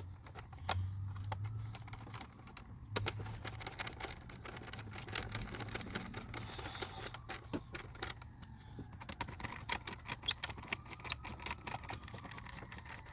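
Irregular light clicks and rattles of tools and parts being handled during engine-bay reassembly, over a steady low hum. A siren wails faintly, rising and falling, from about eight seconds in.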